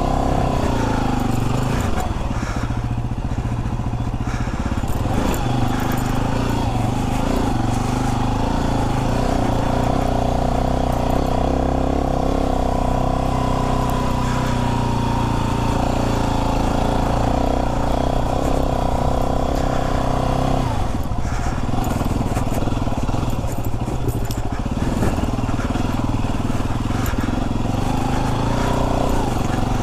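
Yamaha WR250R's 250 cc single-cylinder four-stroke engine running at low revs in low gear, the revs rising and falling with the throttle several times.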